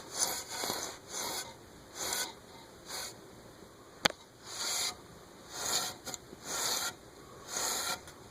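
A makeshift duster rubbing and swishing along ceiling fan blades in short strokes, about one a second, with one sharp click about four seconds in.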